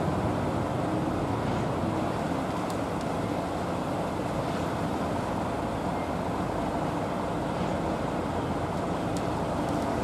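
Concrete mixer trucks' diesel engines running steadily at idle in a queue, a continuous low rumble.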